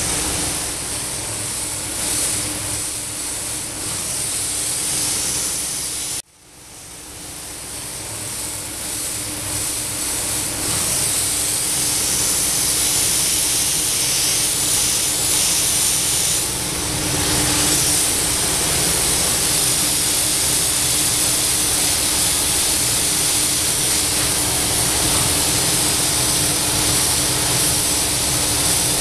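Compressed-air paint spray gun hissing steadily as it sprays a car body panel, over a steady low hum. The sound cuts out abruptly about six seconds in and fades back up over the next few seconds.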